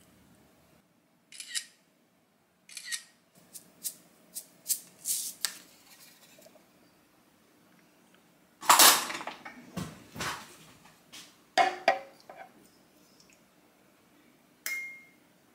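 Kitchen handling sounds from a stainless steel container: a run of light clicks and knocks, then a louder clatter about nine seconds in. Tongs knock against the metal container with a short ring, and there is a last clink near the end.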